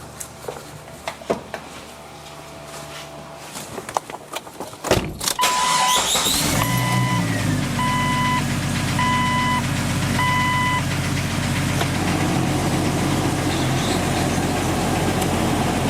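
A few clicks and rattles, then the 1999 Jeep Cherokee's engine cranks and starts about five seconds in and settles into a steady idle. A dashboard warning chime beeps several times, evenly spaced, just after it starts.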